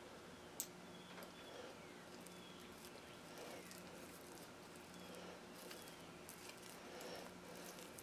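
Near silence: faint handling noise from a steel feeler gauge's blades being fanned out, with one small click about half a second in. Under it are a faint low hum and faint high chirps that fall in pitch.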